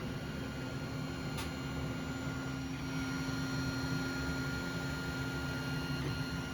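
3D printer running, its stepper motors and fans giving a steady whine and hum made of several held tones, with a single small click about a second and a half in.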